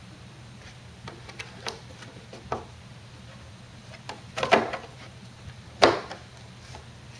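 Handling noise: a few scattered clicks and knocks, the loudest two about four and a half and six seconds in, over a steady low hum.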